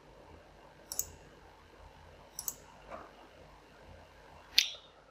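Computer mouse clicks: four separate clicks, the first two each doubled as press and release, the last the loudest.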